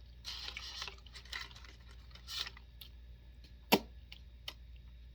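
Close-up eating sounds: chewing and wet mouth noises in short irregular bursts, with one sharp click a little past the middle.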